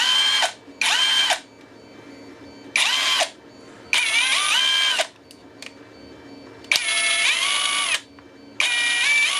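Cheap cordless impact driver running on a fitted Makita battery, triggered in six short bursts; each burst is a motor whine that climbs as it spins up and drops as it winds down. It shows the tool works on the Makita battery.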